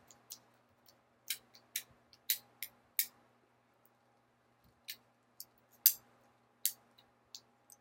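Fidget cube's clicker buttons being pressed: about a dozen sharp plastic clicks at irregular intervals, over a faint steady hum.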